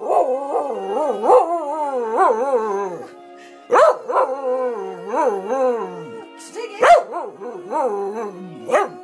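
Staffordshire bull terrier howling along to a TV theme tune. One long wavering howl is followed by fresh howls that start sharply about four seconds in, near seven seconds and at the end, over the tune playing underneath.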